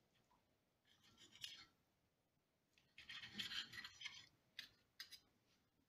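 Faint scraping of a table knife and fork against a ceramic plate while cutting soft cooked chorizo: a short scrape about a second in, a longer one about three seconds in, then a few light clicks of cutlery on the plate.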